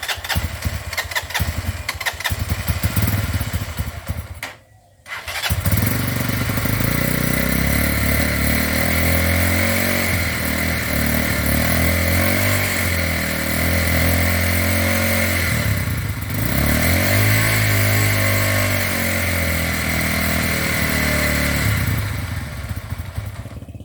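FT200 motorcycle's single-cylinder engine being started: it sputters unevenly for about four seconds, then catches after a brief pause and runs steadily with a steady high whine over it. This is the loud, annoying engine noise the bike came into the shop for; the engine also does not stay running.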